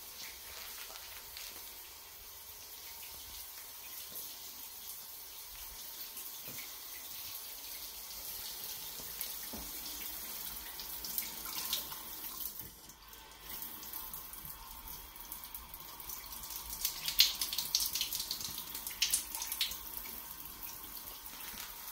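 Water running from a bathtub faucet as a steady hiss. A few sharp clicks and knocks come in the last few seconds.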